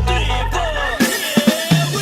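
Background electronic music with drum hits and gliding synth tones.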